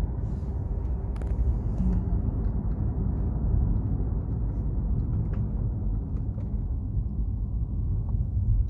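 Low, steady road and engine rumble heard inside the cabin of a moving Maybach, with a few faint clicks.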